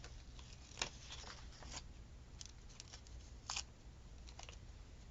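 Faint rustling and small ticks of thin paper stickers being handled and peeled from their sheet, with slightly louder crackles about a second in and again near three and a half seconds.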